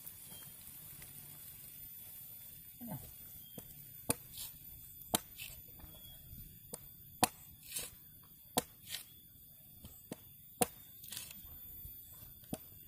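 Machete chopping into the husk of a young green coconut, trimming it open: a run of sharp, separate chops at irregular intervals of about half a second to a second, starting about four seconds in.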